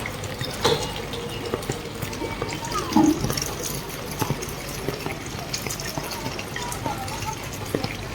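Floodwater splashing and running, with scattered small splashes and clicks.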